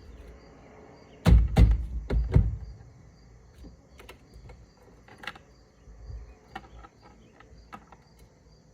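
A quick run of about four heavy knocks or thumps, then scattered light clicks and taps, as of parts or tools being handled.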